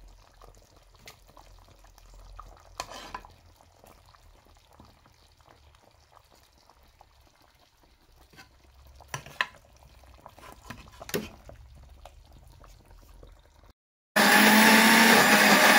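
Quiet kitchen handling with a few faint knocks, then near the end a countertop blender starts abruptly and runs loudly for about two seconds with a steady motor whine, puréeing the cooked tomato, onion and pepper.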